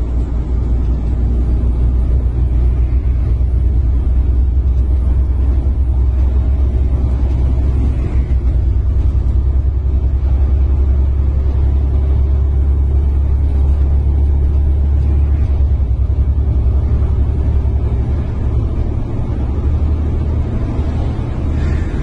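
Steady low rumble of engine and road noise heard from inside the cab of a vehicle driving at speed on a highway.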